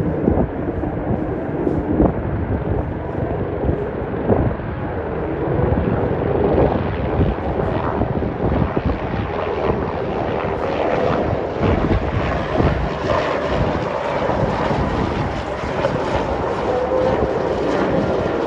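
Light helicopter flying overhead, its rotor blades chopping steadily with a rapid, even beat. The sound grows sharper and fuller about six seconds in.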